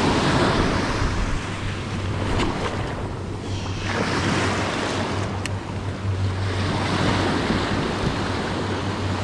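Ocean surf: small waves breaking and washing up over the sand, swelling and ebbing over a few seconds, with wind buffeting the microphone.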